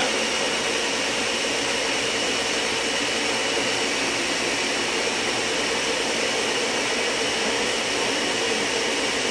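Countertop blender running steadily on speed setting one, with a constant whine, mixing a thick base of full-fat coconut milk, peanut butter and honey.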